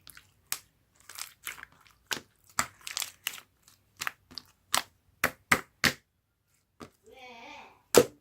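Close-up crunching and crackling, about fifteen sharp, uneven crunches. About seven seconds in there is a brief voice-like hum.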